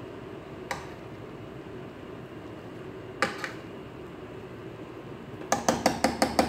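Metal serving spoon knocking against the rim of a cooking pan of rice: a single click, a sharper clink a few seconds later, then a quick run of about half a dozen ringing taps near the end. A steady low hum runs beneath.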